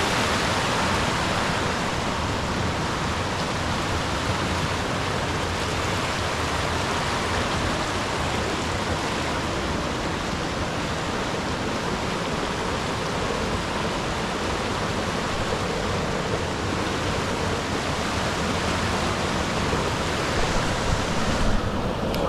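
Waterfall rushing steadily close by, an even roar of falling water, with a few louder bumps near the end.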